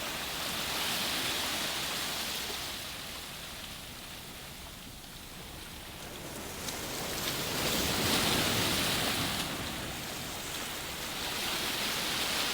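Sea waves washing in, a noisy rush that swells and fades roughly every four seconds.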